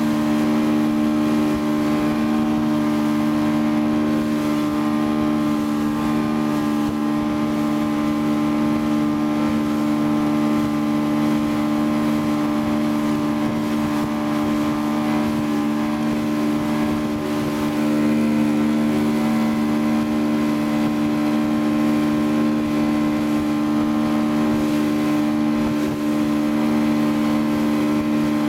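Motorboat engine running steadily at towing speed, a constant drone with no change in pitch, over the rush of water from the hull and wake.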